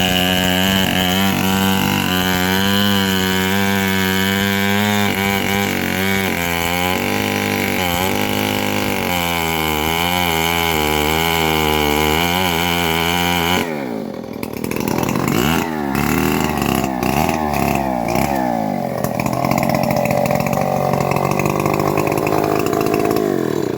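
Engine-driven saw on a homemade bandsaw mill running under load while cutting an old mahogany log, its engine note wavering. About 14 seconds in the sound dips and the pitch sweeps down and back up, then it runs on until it cuts off abruptly at the end.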